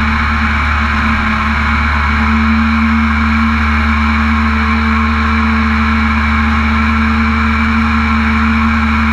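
Mini jet boat's engine running at a steady cruising speed under way, a constant drone with a hiss of water and wind over it.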